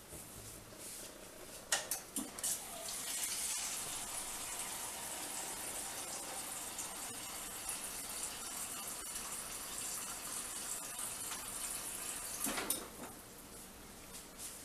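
Steady sizzling hiss of rosin flux and solder under a soldering iron as it is held on a relay pin's joint, lasting about ten seconds. It starts a couple of seconds in, after a light click, and stops near the end with another click.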